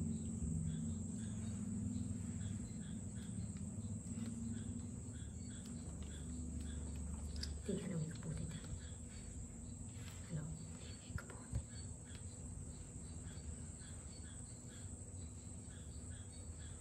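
Low steady background hum with a faint high chirp repeating about twice a second, and a few soft taps about two thirds of the way in.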